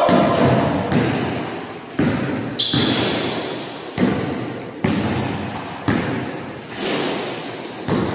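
Balls bouncing on a gym's hardwood floor, sharp thuds about once a second, each ringing on in the echoing hall, with a short sneaker squeak about two and a half seconds in.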